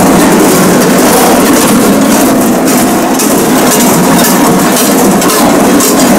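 Glöckler bells: many large bells worn at the waist of the runners, clanging together in a dense, steady jangle as they move past in procession.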